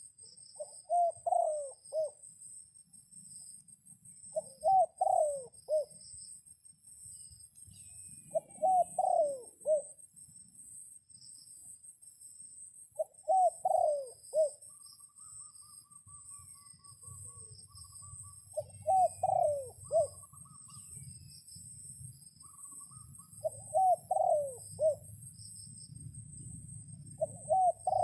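A dove cooing: a short phrase of several rolling coos, repeated seven times about every four to five seconds, with steady high insect trilling behind.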